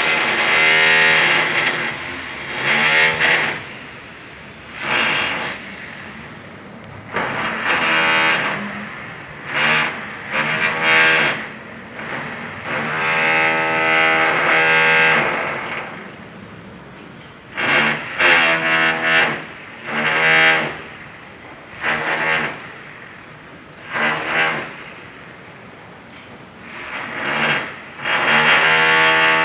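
Electric demolition hammer (martelete) breaking concrete, run in repeated bursts of one to three seconds with short pauses between, its pitch rising briefly as each burst starts.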